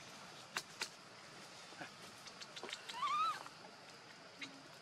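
A young macaque gives one short, high, wavering cry about three seconds in, a cat-like squeal. Two sharp clicks come earlier, near the start.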